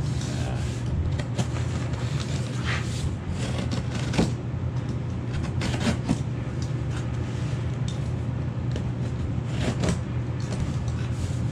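Cardboard shipping box being cut open with a utility knife: irregular scraping and rasping of the blade through packing tape and cardboard, with the box being handled. A steady low hum runs underneath.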